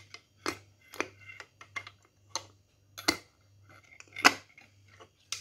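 Irregular clicks and taps of hands and a plastic cleaning brush against a Futura pressure cooker's lid, about one every half second, the loudest about four seconds in.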